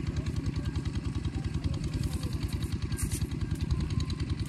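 A small engine running steadily at idle, a rapid even chugging with a light clatter on top.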